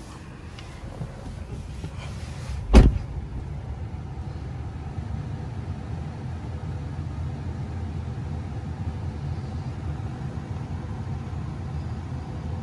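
A Tesla Model 3's door shutting with a single heavy thump about three seconds in, followed by a steady low rumble.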